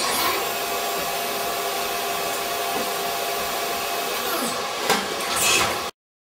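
Haas DT1 CNC machine engraving lettering into a banana oil pan, cutting dry with no coolant: a steady high spindle whine over a loud hiss. Near the end the pitch sweeps down and back up, then the sound cuts off abruptly.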